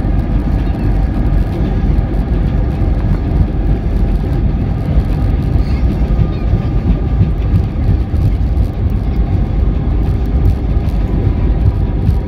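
Inside the cabin of a JetBlue Airbus A320 rolling slowly on the ground after landing: a steady, loud low rumble from the wheels and airframe, with the engines running at idle and a faint steady hum over it.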